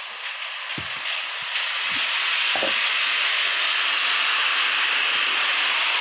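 Air spray gun hissing steadily as it sprays finish onto a wooden table, louder from about a second and a half in, with a few faint low knocks.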